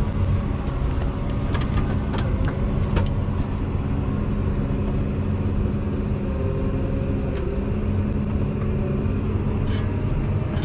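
Case IH Magnum tractor's diesel engine running steadily at low revs, heard from inside the cab as the tractor moves off slowly with the disc harrow lifted. Scattered light clicks and rattles sound over the engine.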